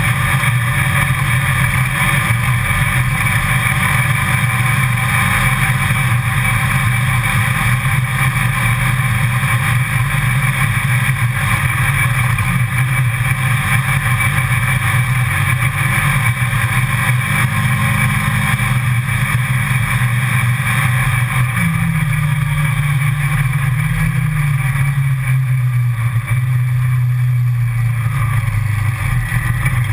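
Side-by-side utility vehicle's engine running steadily as it drives along a dirt trail, its note dropping a little in pitch about three-quarters of the way through as it slows.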